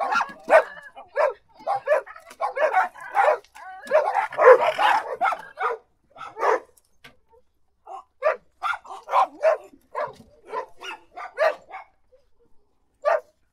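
Dog barking in a run of short separate barks, crowding together into a quick flurry about four to five seconds in, with pauses of a second or more between later groups.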